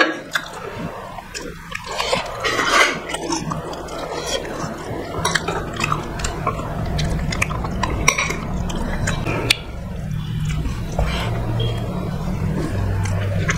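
Close-up eating sounds: hands mixing rice with curry gravy on clay plates, with many small wet clicks and squelches, plus chewing.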